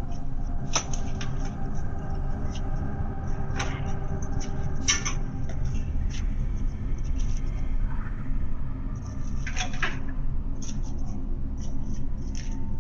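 Steady low rumble through a doorbell camera's microphone, with scattered light knocks and clicks, the clearest about a second in and near the middle.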